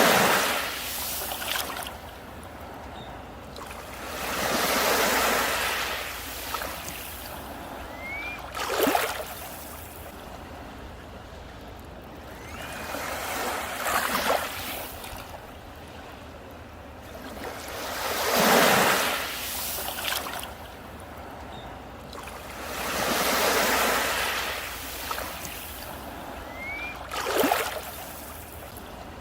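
Sea waves breaking on a beach, one wash of surf swelling and falling away every four to five seconds.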